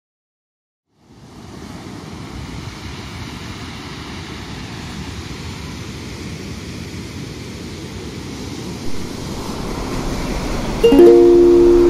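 Sea surf breaking and washing over a pebble beach, a steady rushing noise that starts about a second in and slowly grows louder. Near the end a ukulele starts plucking notes, louder than the surf.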